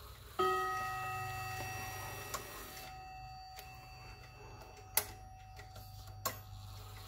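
A chime rod in a Howard Miller wall clock is struck once and rings out, fading slowly, instead of a chime tune playing: the chime selector is caught between silent and the first song. Three sharp clicks follow.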